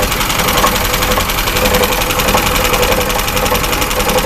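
Vehicle engine idling with a rapid, regular knock carried through the driveline between engine and gearbox. The knock comes only at idle, and the owner cannot place it; he wonders whether there is play in the gearbox.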